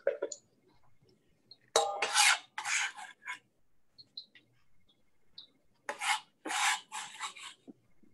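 Chef's knife scraping across a cutting board in two short runs of strokes, three about two seconds in and four about six seconds in, sweeping chopped green onion off the board.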